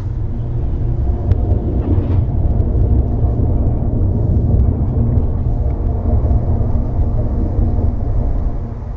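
A heavy vehicle crossing the bridge overhead, heard from beneath the deck: a deep, steady rumble with a droning engine note that swells, peaks midway and fades near the end.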